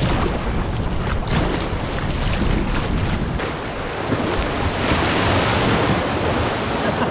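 Turbulent tidal-bore river water rushing and churning around a canoe, with wind buffeting the microphone. The hiss of the white water swells about two-thirds of the way in.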